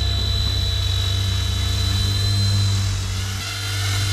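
Small electric remote-control helicopter flying close by: a steady high motor whine over the low hum of its spinning rotor. It dips a little over three seconds in and swells again near the end as it passes close.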